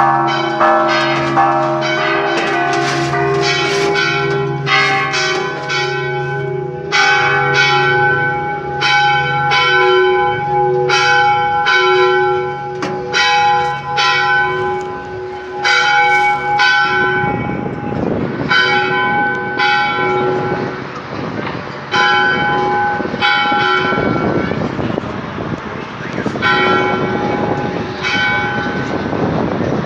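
Several church bells pealing together, struck in quick succession at different pitches. The deepest bell stops a little past halfway, and the strokes of the remaining bells thin out toward the end.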